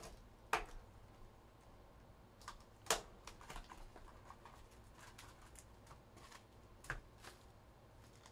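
Light clicks and taps of a trading-card box and its packs being handled, with three sharper clicks about half a second, three seconds and seven seconds in.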